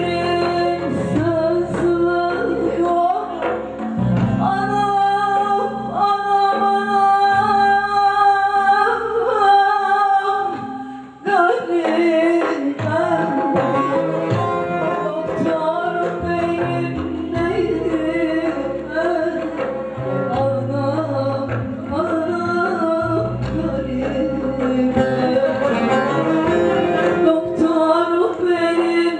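A woman singing a Turkish folk song live into a microphone, accompanied by bağlama and hand drum. Her long held notes give way to a brief drop in the music about eleven seconds in, then the song carries on.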